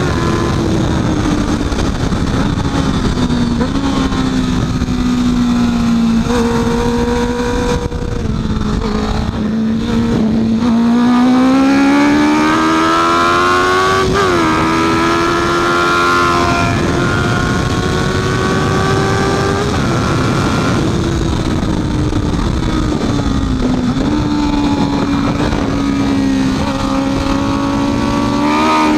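Honda CB650F inline-four engine under race load. Its pitch falls over the first few seconds, then climbs hard from about ten seconds in, holds high, drops again past twenty seconds and rises once more near the end as the rider brakes and accelerates through the corners.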